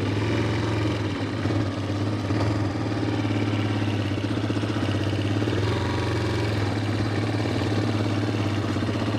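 2022 Brozz 250 Recon dual-sport motorcycle's 250 cc single-cylinder engine running steadily at low revs under light throttle as the bike rolls slowly in first gear.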